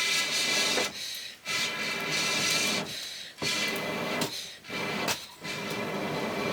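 Someone blowing repeatedly on a wood cooking fire to make it catch: long rushing blows of about one to two seconds with a faint whistling tone, broken by short, irregular pauses for breath.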